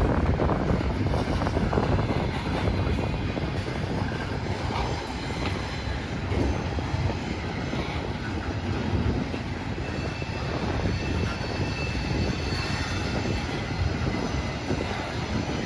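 Train rolling past: a steady rumble of wheels on the rails, with no horn sounding.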